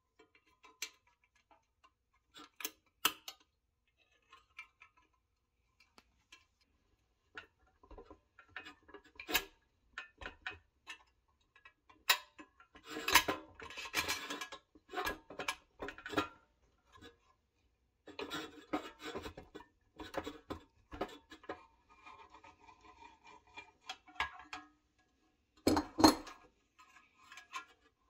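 Small pressed-steel and chrome toy-truck parts being handled and fitted: irregular light metal clicks, taps and scrapes, with short ringing, busiest in the middle while a metal clamp is worked on a trim piece. One sharp clack near the end.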